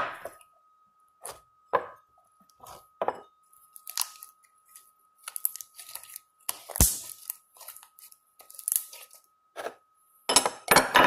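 Homemade glue slime being stirred and pulled, making short, irregular sticky tearing and crackling sounds.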